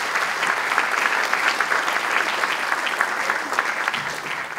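Audience applauding, many hands clapping steadily, starting to die away near the end.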